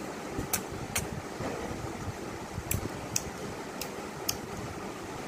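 A child blowing kisses: six short, sharp lip-smacks, loosely paired about half a second apart, over a steady background hum.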